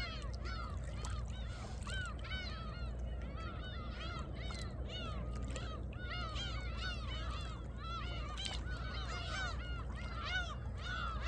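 A flock of birds calling nonstop, many short arched calls overlapping one another, over a steady low wash of sea water lapping among shore rocks.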